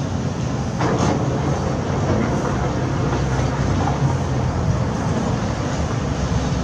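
Diesel engine of heavy construction machinery running steadily, with a single short clank about a second in.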